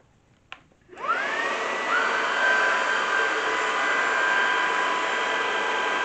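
Ultenic FS1 cordless stick vacuum switched on: a faint click, then about a second in the motor spins up with a rising whine that levels off and runs steadily.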